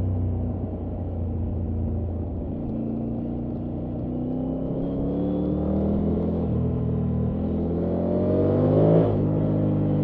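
Triumph Tiger 900 Rally Pro's 888 cc inline three-cylinder engine pulling under throttle on the road, its revs climbing steadily for several seconds. The revs drop sharply about a second before the end.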